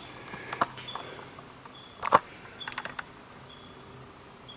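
Light clicks and knocks, one sharper knock about two seconds in and a quick cluster of small ticks just after. A faint, short, high chirp repeats roughly once a second.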